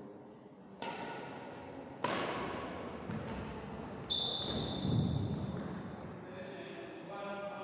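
Badminton rackets striking a shuttlecock in a rally: three sharp cracks a second or two apart, with lighter clicks between, echoing in a large hall, the third followed by a high ringing tone. A dull thud of a footfall on the wooden court comes about a second after the last strike.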